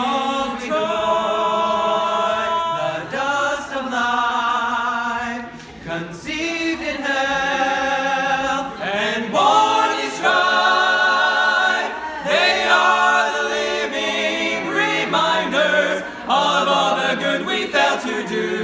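A male vocal quartet singing a cappella in harmony, holding long chords with vibrato, with short breaks between phrases.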